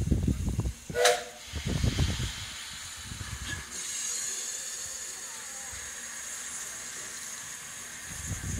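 Steam hissing steadily from a small narrow-gauge steam locomotive standing at the platform, growing louder and higher about four seconds in. A few low thumps in the first two seconds.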